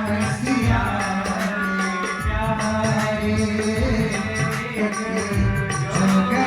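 Instrumental interlude of a Hindi devotional bhajan: an organ holds a sustained melody over tabla, whose deep bass strokes sound every second or so.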